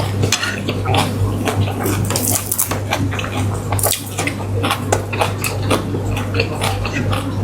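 Close-miked eating sounds: many quick wet mouth smacks and chewing of a curry meal, with a spoon clinking on dishes, over a steady low hum.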